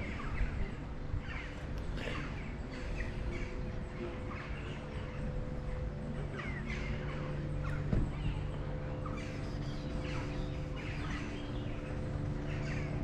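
Birds chirping and calling again and again, over a steady low hum.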